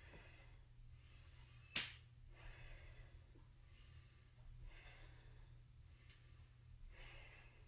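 Faint breaths in and out, a second or two apart, from a woman moving slowly up and down in yoga squats. One sharp click about two seconds in, over a low steady hum.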